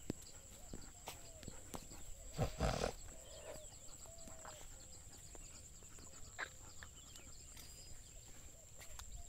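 Quiet outdoor walk: scattered light footstep clicks on a dirt path, over a steady high-pitched whine and faint short repeated calls. A brief louder rustle comes about two and a half seconds in.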